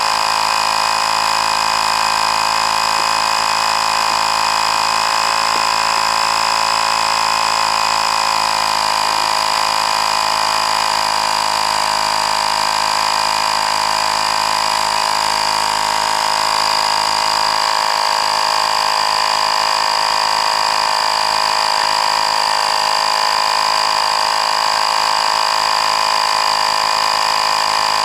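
Miniature 12-volt portable tire-inflator air compressor running steadily, pumping air into a truck tire, with an even, high-pitched motor whine that holds the same pitch and loudness.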